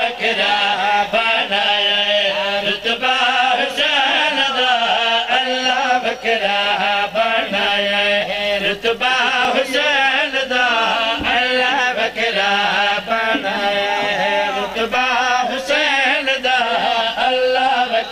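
A voice chanting a devotional Urdu qasida in a wavering, melismatic melody that runs on without a break.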